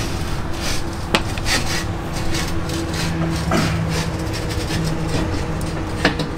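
Metal scraping and rubbing as a fifth-wheel RV's hydraulic landing-gear leg is lowered, with sharp knocks about a second in and again near the end. A steady low hum runs underneath.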